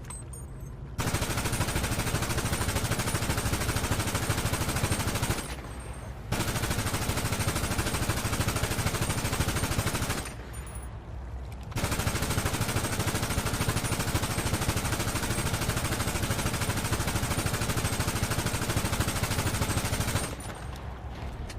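AK-pattern Mini Draco fed from a drum magazine, firing fully automatic in three long, continuous bursts of about four, four and eight seconds, with short pauses between them.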